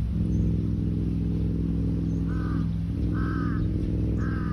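A crow cawing three times, about a second apart, starting a little after two seconds in, over a steady low hum.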